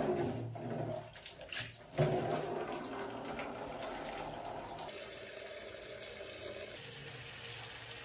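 Water running steadily from a wall tap into a plastic basin, with hands sloshing clothes in a basin of soapy water.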